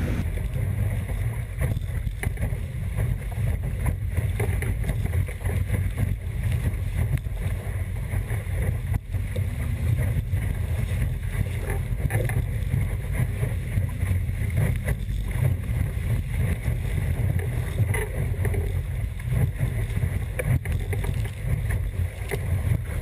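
Strong wind buffeting the microphone of a camera mounted on a Sunfish sailboat's deck, a continuous low rumble, with water rushing and splashing past the hull as the boat sails hard in heavy wind.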